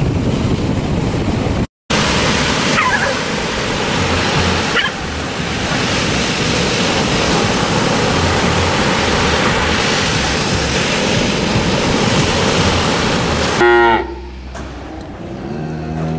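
Steady rush of ocean surf breaking on a beach, cut by a moment of silence about two seconds in. Near the end comes a short, loud call falling in pitch, then quieter steady musical tones.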